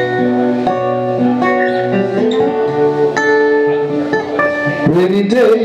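Two acoustic guitars playing together in a song's instrumental passage, with notes ringing and changing every half second or so. A voice comes in singing near the end.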